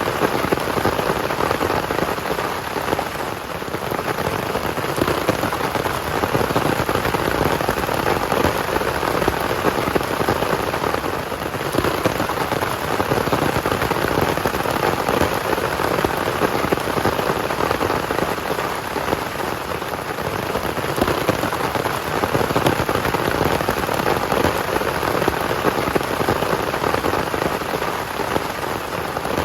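Heavy rain falling steadily, a dense, even patter of countless drops with no let-up.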